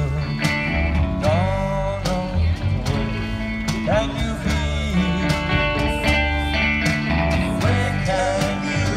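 Live band playing an upbeat tune on electric guitar, saxophone and upright bass, with a steady beat of drum strokes.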